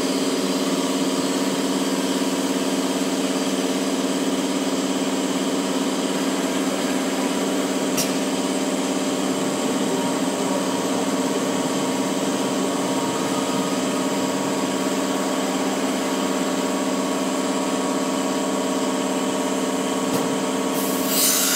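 CNC router with an automatic tool changer running, a steady hum of several even tones while its spindle head travels toward the tool rack. One sharp click about eight seconds in, and a burst of hiss near the end.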